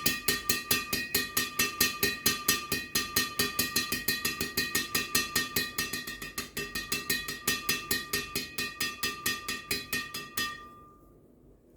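Yonex Astrox 88D Pro racket strung with BG66 Ultimax at 28 lbs, its string bed struck over and over at an even pace of about five hits a second, with a steady ringing tone beneath the hits. The hits stop near the end.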